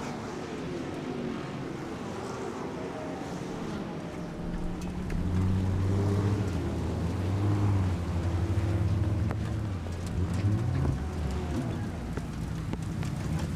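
Racing car engines running at low speed on a wet track, over a steady wash of rain and spray. A louder, deeper engine note comes in about five seconds in, holds steady and fades after about eleven seconds.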